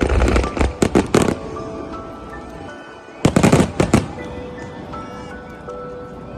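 Fireworks going off in two quick clusters of bangs and crackles, the first at the start and the second about three seconds in, over background music with held notes.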